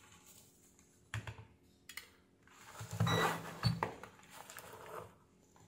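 Light clicks and knocks of tools being handled on a rubber work mat, as a digital multimeter and its test probes are set down and picked up. The loudest knocks come about three to four seconds in.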